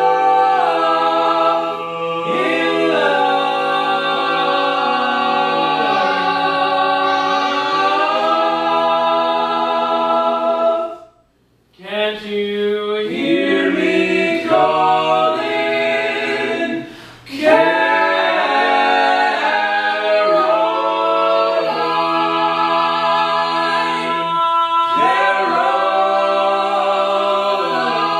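Male vocal quartet singing a cappella in close four-part harmony, holding long chords. The singing breaks off briefly about eleven seconds in, then picks up again.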